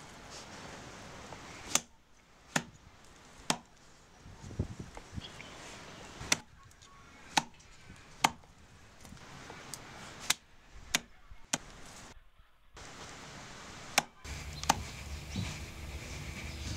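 A blade chopping raw meat on a wooden chopping block: about a dozen sharp, irregularly spaced chops.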